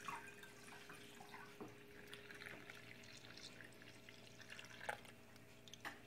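Faint trickle of raw milk poured from a plastic bucket through a terry-cloth tea towel into a gallon jar, with a couple of light knocks and a faint steady hum underneath.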